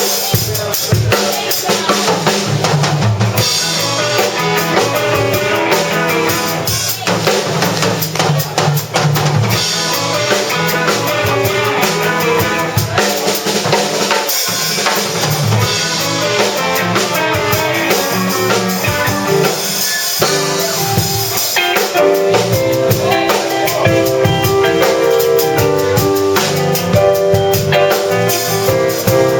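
Instrumental band music: a drum kit plays a steady beat under bass and other pitched instruments. More sustained notes come in about two-thirds of the way through.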